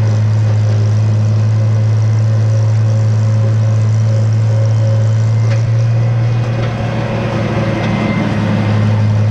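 Farmall 706 tractor's engine running steadily with a low, even drone; about two-thirds of the way through its note roughens and the level dips briefly before steadying again.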